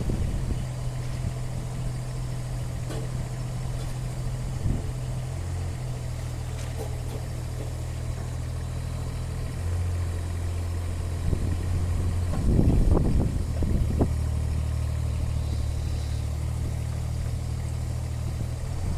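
Kubota U17 mini excavator's diesel engine running steadily, its pitch shifting up and down a few times as the hydraulics are worked, with a few knocks, the loudest cluster a little over halfway through, as the bucket is unhooked and the next one hooked onto the quick hitch.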